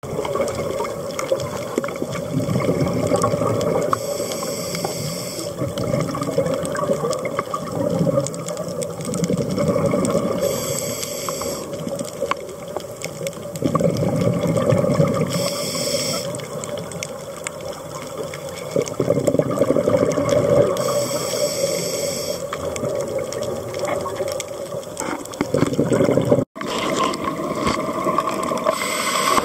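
Underwater sound of open-circuit scuba breathing through a regulator: a low rumble of exhaled bubbles alternating with a short high hiss of inhalation, in a slow cycle about every five to six seconds. The sound cuts out for a moment near the end.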